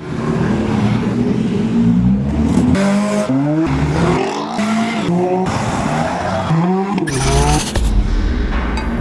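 A car engine revving over and over with tyres squealing, its pitch repeatedly rising and falling, as in racing or drifting.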